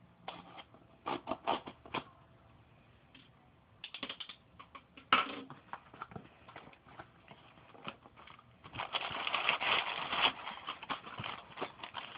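Cardboard shipping box being opened by hand: scattered taps and knocks on the cardboard, then a continuous rustling and crackling from about nine seconds in.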